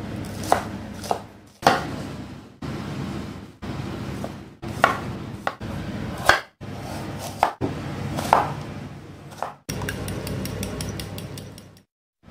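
Kitchen knife slicing vegetables on a bamboo cutting board: sharp knife strikes on the wood in short, separate bursts. Near the end comes a quick run of rapid, even chopping strokes.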